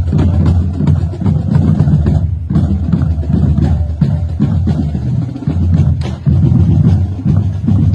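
Marching band drumline playing a marching cadence: bass drums with snare and rim clicks in a steady march beat, with a brief break about two and a half seconds in.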